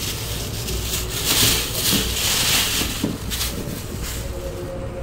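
Thin plastic bag crinkling and rustling as shallots are tipped out of it onto a plastic tray, with a few knocks as they tumble out.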